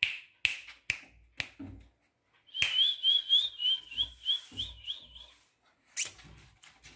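A few sharp finger snaps, then a person whistling a quick warbling run of short high notes for about three seconds, with one more snap near the end.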